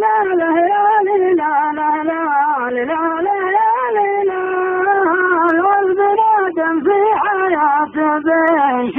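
Unaccompanied solo voice singing a slow, ornamented melody in long held notes that bend and slide, in the style of Gulf Arabic chanted poetry (shaila).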